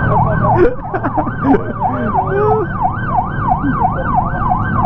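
Police patrol car siren in fast yelp mode, its pitch sweeping up and down about three times a second, sounded to move the roadside gathering along. A steady low rumble runs underneath.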